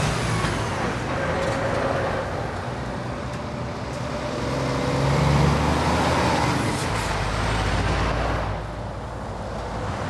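Articulated lorries driving past one after another with their diesel engines running, alongside tyre and road noise.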